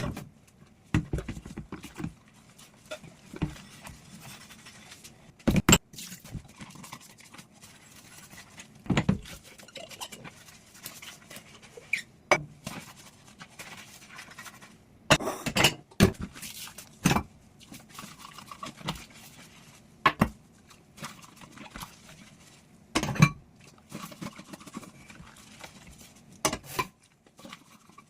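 Dishes and utensils being handled during hand dishwashing: irregular knocks and clinks every second or two.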